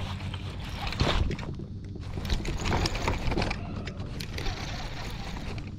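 Handling noise from a fishing rod and baitcasting reel in a kayak: a loud knock about a second in, then scattered irregular clicks and rustles, over a steady low rumble.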